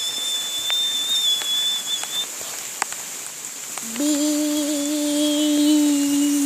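A high whistled note held for about two seconds, then after a short gap a lower steady hummed tone from about four seconds in, a mouth-made 'please stand by' test signal. A few sharp taps fall in between.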